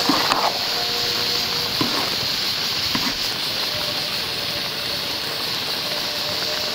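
A metal spoon scooping and stirring cooked rice in an aluminium pot, with a few brief scrapes against the pot, over a steady hiss.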